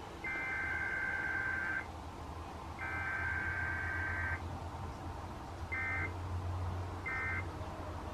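Emergency Alert System SAME digital data bursts received over FM radio: two long bursts of buzzy two-tone data (the alert header), then two short bursts about a second and a half apart (the end-of-message code), over a steady low hum.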